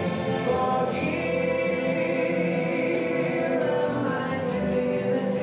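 Choral music: voices singing long held chords, the chord changing a couple of times.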